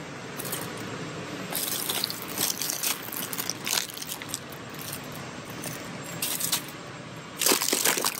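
Plastic bags of chopped salad kit crinkling and rustling as they are handled in a cardboard display box, in two spells of crackling, the louder one near the end, over a steady background hum.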